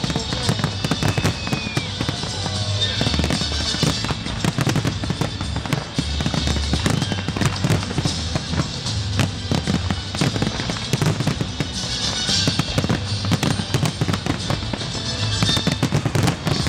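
Fireworks display: a dense, continuous run of bangs and crackling shells over loud music with a steady low bass. Bursts of crackle swell up around the middle and again near the end.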